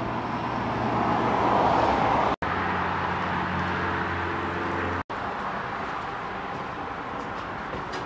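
Steady low engine-like hum with outdoor traffic noise. It cuts out abruptly twice, briefly, about two and a half and five seconds in.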